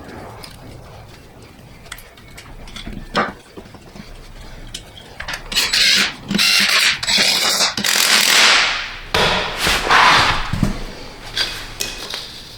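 Hand tools working on an engine as its ground-wire bolts are tightened: scattered clicks and knocks, then a run of loud rasping bursts from about five seconds in until near the end.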